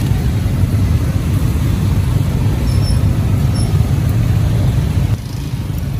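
Steady low rumble of busy street traffic, motorbikes and cars, which drops a little about five seconds in.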